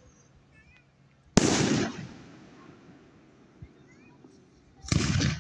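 Aerial fireworks: a sharp bang about a second and a half in, its report rolling away over about a second, and another loud blast starting near the end.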